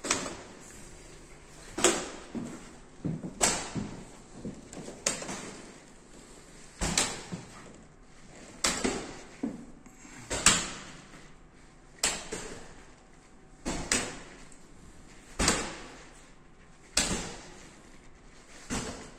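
Hands slapping large plastic arcade push buttons on a reaction-game wall: a sharp knock about every one and a half to two seconds, with a few lighter knocks in between.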